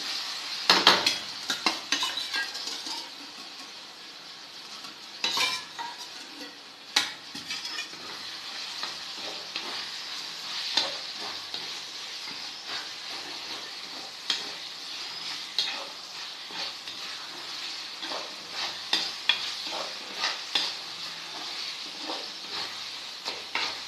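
Prawns frying in oil with onion-tomato masala in a pan, a steady sizzle, while a utensil stirs them with frequent scrapes and knocks against the pan.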